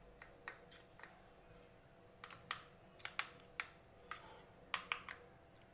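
Metal spoon tapping and clicking against a plastic ice cube tray and a steel bowl as desiccated coconut is spooned into the tray's cavities: a string of light, sharp, irregular clicks, bunched most thickly in the second half.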